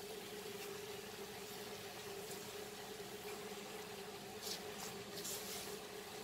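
Chopped red amaranth leaves dropping and being pushed off a plate into a pan, with a few soft rustles about four and a half to five and a half seconds in, over a steady faint hum.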